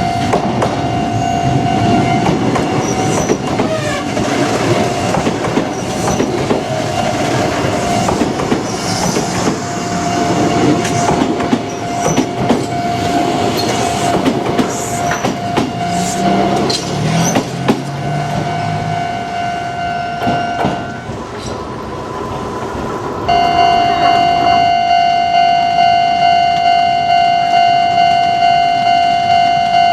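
A Japanese level-crossing warning bell rings steadily while a Kintetsu electric train rumbles over the crossing, its wheels clattering on the rail joints. About 21 seconds in the bell stops and the train noise dies away. Two seconds later the bell starts again alone, pulsing about one and a half times a second.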